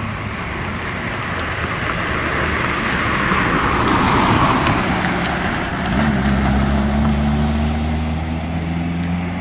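Street traffic: a car goes by, loudest about four seconds in, and from about six seconds a steady low hum sets in under the road noise.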